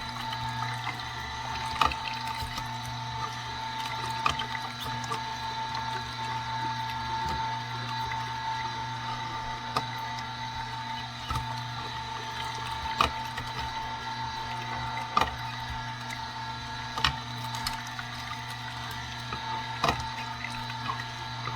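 Omega masticating juicer running steadily, its slow auger crushing fruit, with a sharp crack or click every two seconds or so.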